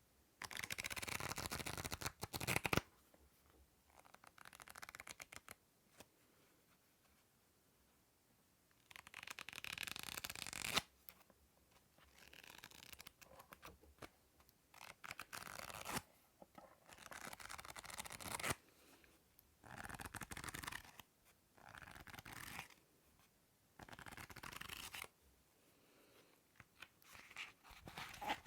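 Close-up ASMR scratching and rustling on a hand-held object: about ten separate bursts, each a second or two long, with short quiet gaps between.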